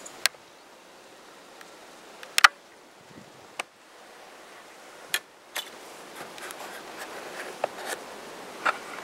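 Handling noise from a handheld camera being turned around: a handful of short sharp clicks and knocks, the loudest about two and a half seconds in, with soft rustling of clothing and dry leaves in the latter part.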